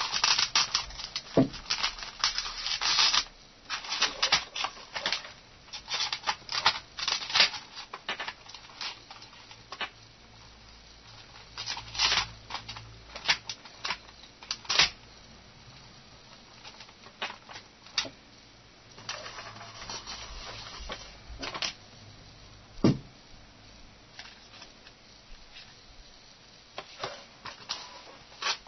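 Hands handling small plastic parts and wires: irregular clicks, taps and rustling, busiest in the first few seconds and again about halfway through.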